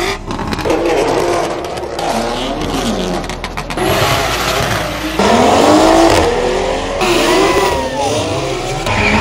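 Performance car engines revving and accelerating hard on a drag strip, their pitch climbing and falling. The sound changes abruptly from one car to the next every second or so.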